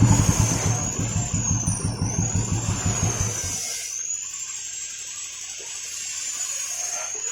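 Royal Enfield Classic 350 single-cylinder engine running with a rapid pulsing thump, after a smooth start on its new starter motor; it is switched off and cuts out suddenly about three and a half seconds in.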